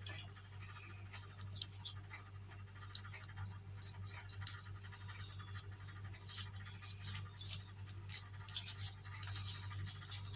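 Faint crinkling and scratching of a paper muffin liner being peeled off a baked chocolate muffin by hand, with scattered light clicks, over a steady low hum.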